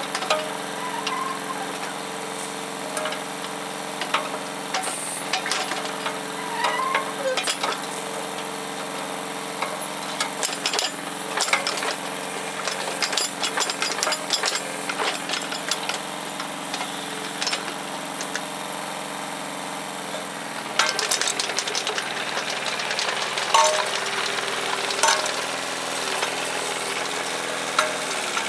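An engine running steadily with frequent sharp metallic knocks and clanks over it. The engine note changes about three-quarters of the way through, followed by a cluster of louder knocks.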